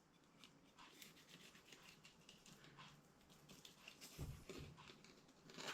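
Faint scraping and clicking of a filleting knife working through a teraglin on a cutting board, with a dull thump about four seconds in.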